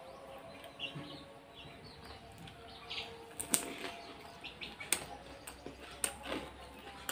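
Chewing and crunching of crisp pani puri shells: a run of sharp crackles and clicks from about three and a half seconds in, with faint bird chirps in the background.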